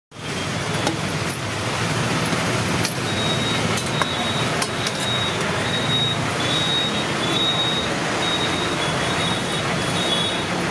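Steady roadside traffic noise from passing vehicles.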